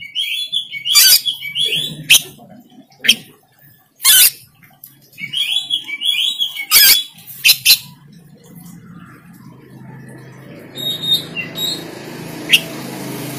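Oriental magpie-robin (kacer) singing loudly: sharp, piercing calls and rapid chattering phrases. After about eight seconds the song thins to a few faint notes over low background noise.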